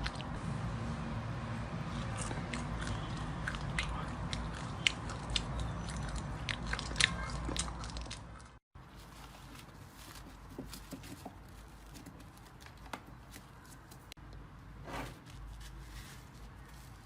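Close-miked crunching and crackling of a brittle material being crushed or cut, with many small sharp clicks. About halfway through it cuts off abruptly, and a quieter stretch with only sparse clicks and pops follows.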